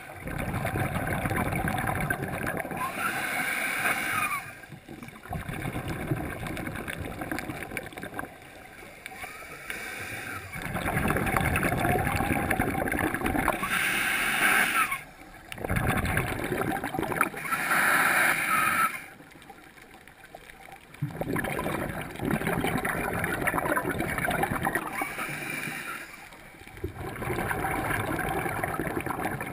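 A scuba diver's regulator breathing underwater: exhaled bubbles gurgle and rush in waves a few seconds long, with quieter gaps between breaths.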